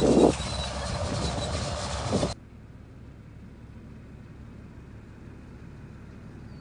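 A nearby engine idling with a steady low hum, with two loud bumps, one at the start and one about two seconds in. The engine cuts off suddenly a little over two seconds in, leaving only a faint steady hiss of outdoor background.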